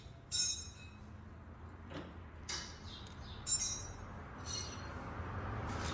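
Several light metallic clinks with a short ringing tail, spread a second or so apart: small metal clutch parts and tools being handled on a workbench.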